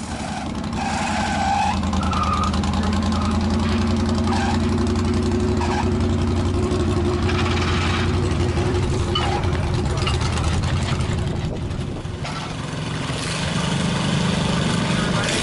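Modified lawn tractor engine running hard and steady under load during a tractor pull, easing off briefly about twelve seconds in and then coming back up.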